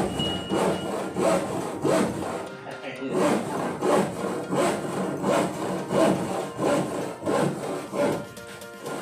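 Hand saw cutting through wood with steady back-and-forth strokes, about one and a half strokes a second.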